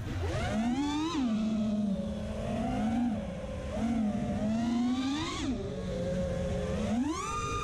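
Brushless motors of an FPV racing quadcopter (Emax RS2205S 2300 kV) whining, the pitch rising and falling with the throttle. There is a sharp climb about a second in, short blips around three and four seconds, another climb near five seconds, and a high rise held near the end.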